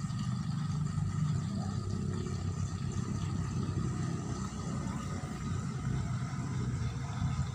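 A motor or engine running steadily, giving a low, even hum.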